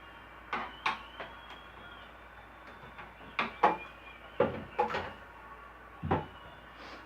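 Irregular clunks and clicks of speaker-cabinet parts being handled and pried during disassembly: about ten knocks, the loudest about three and a half seconds in.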